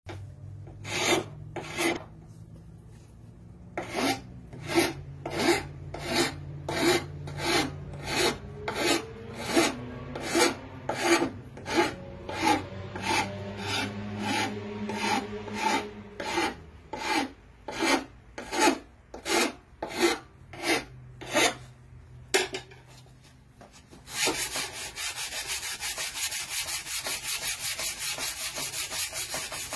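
Hand tool rubbing along the edge of a wooden board in steady back-and-forth strokes, about one and a half a second, shaping the edge of a window sill. After a short pause a quicker, continuous run of rasping strokes starts about three quarters of the way through and stops just before the end.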